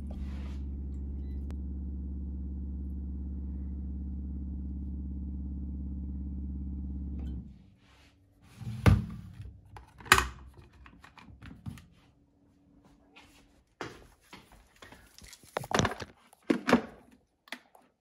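A water purifier's pump hums steadily while the electric kettle fills from the filtered-water faucet, stopping about seven seconds in. Then come a few sharp knocks as the kettle's lid is snapped shut, and more knocks and clicks as the kettle is handled and set down.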